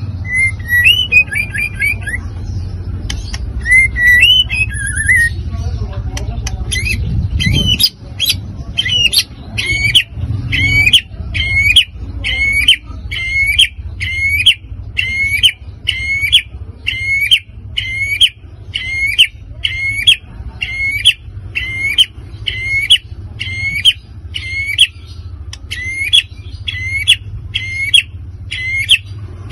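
White-rumped shama singing: varied warbling phrases at first, then from about eight seconds a single sharp note repeated roughly once a second.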